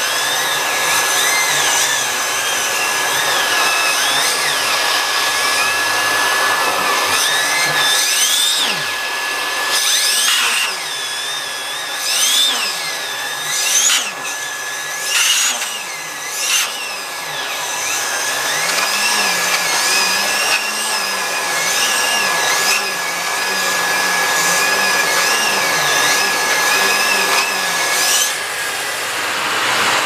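Nilfisk GM80 canister vacuum running with a steady high whine while a small turbo brush nozzle is worked over a fabric cushion. The pitch of the nozzle wavers up and down as it is pushed and pulled, with a few short rushes of brushing and sucking against the fabric in the middle.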